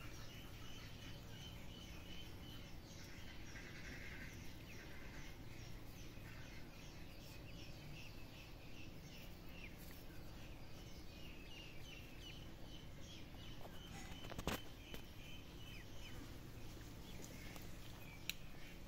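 Faint bird chirping: many short, high peeps repeating quickly over steady outdoor background noise. A single sharp click comes about three-quarters of the way through.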